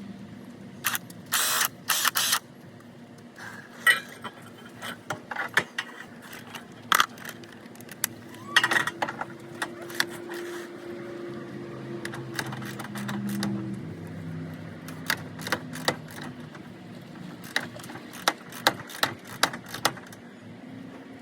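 Hand tools and metal suspension parts clinking and clanking during a lowering-spring install, in scattered sharp knocks, with a low steady hum underneath.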